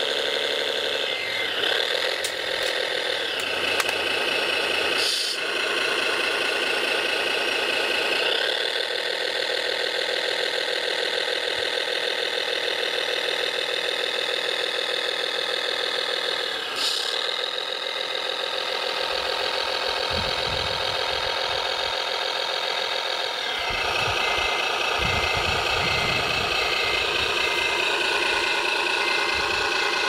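Simulated diesel engine sound from an RC model crane's sound unit, running steadily and rising in pitch a few times as it revs. Two sharp clicks come through, the first near five seconds in.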